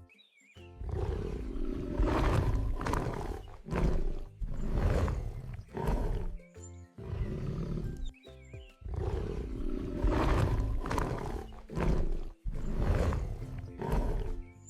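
Recorded tiger growls and roars: a series of rough, deep growls with short pauses between them, the same run of growls apparently played through twice.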